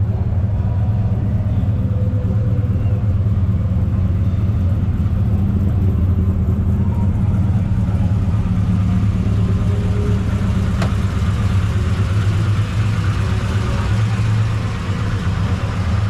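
Hot rod engine running steadily with a deep, low rumble.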